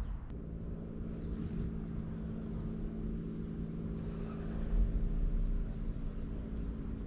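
A steady, low mechanical hum made of several unchanging pitches, like an engine running, with a slight swell in the low rumble a little before the five-second mark.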